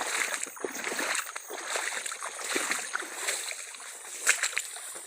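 Shallow paddy water splashing and sloshing in irregular bursts, with small clicks and rustles.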